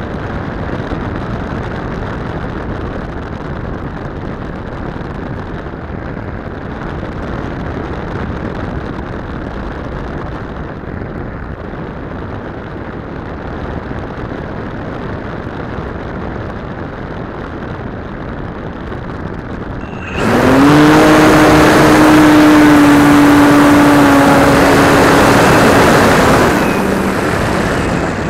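Wind rushing over a model plane's onboard camera as it flies with the motor throttled back, then about two-thirds through the RC plane's motor and propeller throttle up suddenly to a loud steady drone, its pitch sliding up briefly as it spins up, and ease back near the end.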